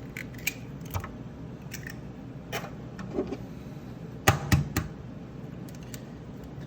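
Eggs being cracked against a plastic cup: scattered light clicks and taps, then three sharp knocks in quick succession about four and a half seconds in.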